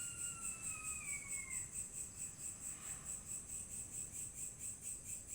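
An insect calling with a continuous high-pitched pulsing trill, about five pulses a second. A distant siren's tone slides down and fades out in the first second and a half.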